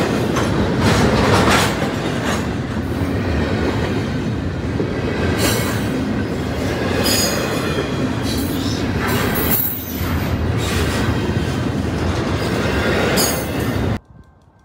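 Double-stack intermodal freight cars rolling past close by, a steady heavy rumble of wheels on rail with several brief high-pitched wheel squeals. The sound cuts off abruptly near the end.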